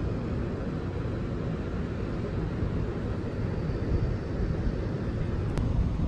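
Wind buffeting the microphone: a steady low rumble, with one sharp click about five and a half seconds in.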